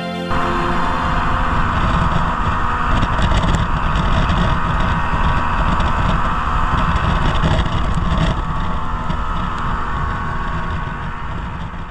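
Strong wind buffeting the microphone on a moving inflatable boat, with the boat's motor running beneath it as a steady rush. It starts abruptly just after the start and fades near the end.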